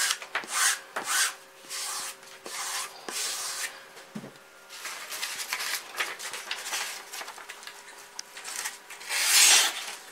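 A knife edge drawn in short rasping strokes over a denim-covered block, stropping off the last of the burr, about six strokes in the first four seconds. Paper rustles later, with a loud rustling scrape near the end.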